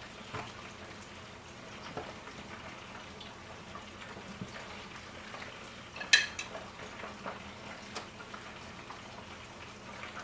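Hot grease sizzling steadily as pre-baked turkey wings fry, with scattered small ticks. One sharp clink of a metal utensil against a pot about six seconds in.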